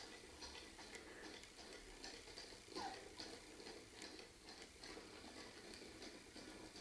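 Near silence with faint, scattered light ticks and taps from puppies playing with a ball on a covered floor, and one short falling squeak a little under three seconds in.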